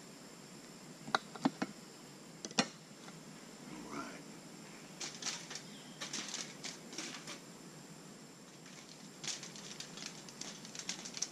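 A knife clicking a few times against a cast-iron pan while slicing sausage, then aluminium foil crinkling in short bursts as the slices are laid on it.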